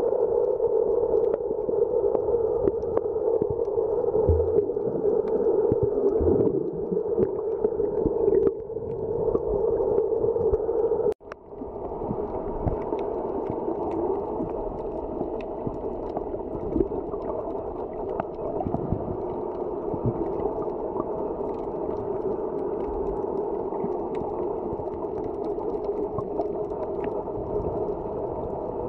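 Muffled underwater ambience heard through a submerged camera: a steady hum with scattered faint clicks. It cuts out for a moment about eleven seconds in and then carries on a little quieter.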